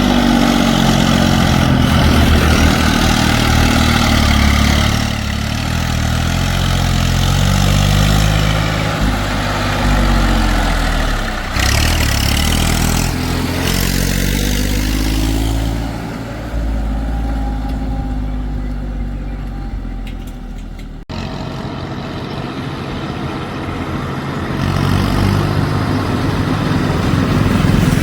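Diesel engine of a working machine running loudly, its revs sinking and then climbing again partway through. It is broken by an abrupt cut about three-quarters of the way in, after which the engine runs on more evenly.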